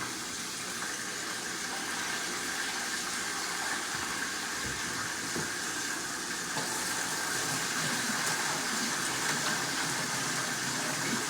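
Kitchen tap running steadily into a sink, a little louder from a little over halfway through.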